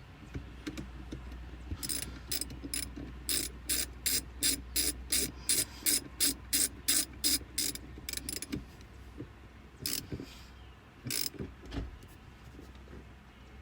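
Ktuned billet shifter being worked through the gears, its lever clicking sharply into the gates about three times a second for several seconds, then a few more clicks near the end.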